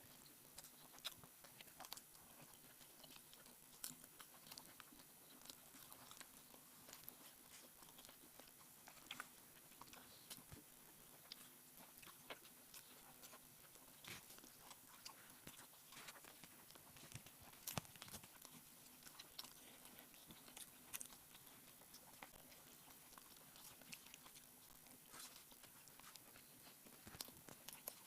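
Faint mouth sounds of eating rice and egg curry: soft chewing with scattered small clicks and crunches at an irregular pace.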